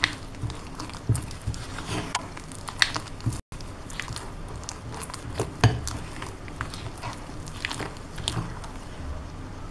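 Spatula stirring and scraping flour into a wet jujube mixture in a glass bowl, becoming a thick, sticky cake batter: irregular soft scrapes, clicks against the glass and wet squelches. A brief break in the sound about a third of the way in.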